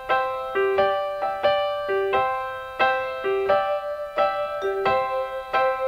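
Background music: an instrumental passage of piano with no singing, a melody of single struck notes that each fade before the next, about two notes a second.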